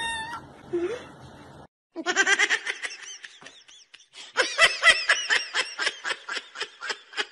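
A person laughing in quick repeated bursts, after a kitten's short meow at the start.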